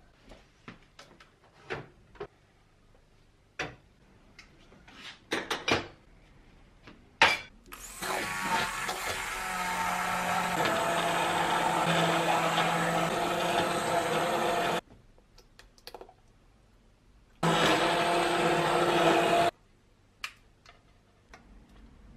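Electric blender running twice: a run of about seven seconds, then a pause and a shorter burst of about two seconds, each stopping abruptly. It is preceded by a series of small kitchen clicks and knocks.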